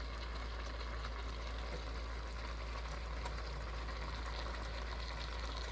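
Mopani worms cooking in a pot with onions, tomato and a little water: a steady sizzling, bubbling hiss, with a constant low hum underneath.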